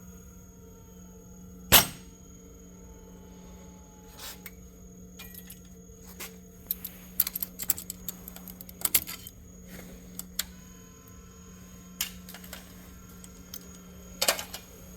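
Small metal parts and tools clicking and clinking during hand work on a cylinder head at a valve spring compressor bench. A single sharp knock comes near 2 s, then clusters of quick metallic clicks in the middle, all over a steady low hum.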